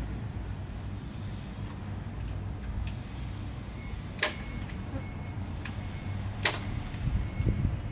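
Low steady hum with scattered light ticks, broken by two sharp knocks about four and six and a half seconds in, then a few dull thumps near the end.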